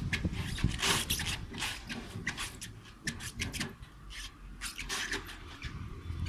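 Irregular clicks and scrapes of a dog's claws and a person's shoes on a textured metal playground stair and platform, with a low rumble underneath.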